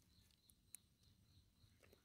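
Near silence: faint outdoor ambience with a soft high-pitched pulse repeating about three times a second, and a couple of faint clicks.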